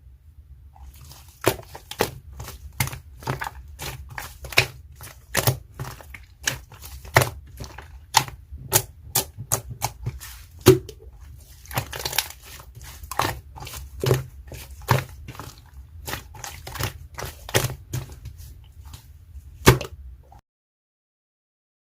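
Slime being squeezed and pressed by hand, giving an irregular run of sharp pops and clicks, about one or two a second, with a short stretch of crackling in the middle. It stops suddenly near the end.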